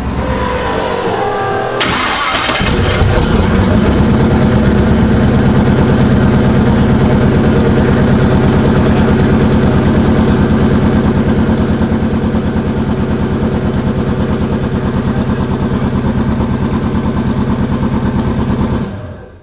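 Twin-turbo 408 cubic-inch LS V8 idling with an even, pulsing beat. A short, loud rush of noise about two seconds in is followed by a steady idle that stops abruptly near the end.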